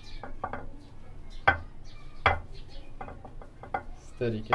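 Dry lasagne sheet being snapped to size by hand: a series of sharp cracks and clicks, the loudest two about a second apart in the middle.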